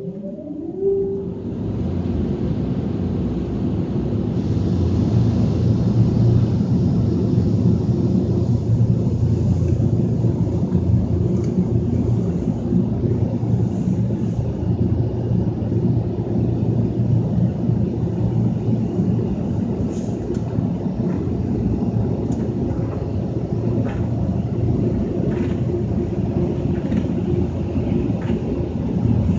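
Ryko Voyager II rollover car wash machinery heard from inside the car: a motor spins up with a rising whine at the start, then a steady loud rumble with a low hum and a hiss of water and brushes that runs on unchanged.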